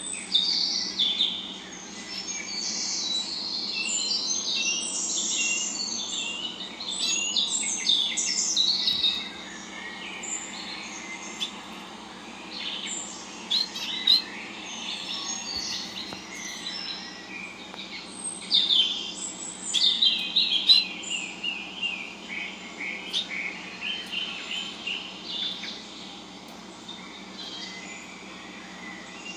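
Small birds chirping and twittering in quick, dense runs of high notes, with a steady low hum underneath. About twenty seconds in comes a run of short repeated notes.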